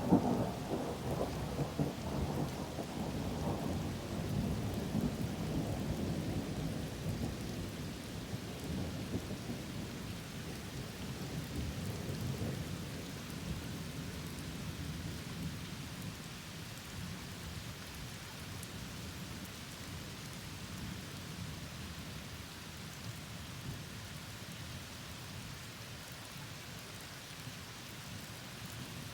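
Thunder rumbling, loudest at the start and slowly dying away over the first ten seconds or so, with rain falling steadily throughout.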